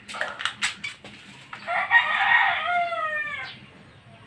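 A rooster crowing once, a call of about two seconds that falls in pitch at its end. A few sharp knocks come in the first second before it.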